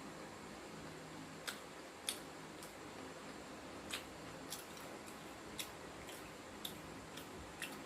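Close-up crunching of a crisp panko-crumbed deep-fried basa fish fillet being chewed: about ten sharp, irregular crackles spaced roughly half a second to a second apart.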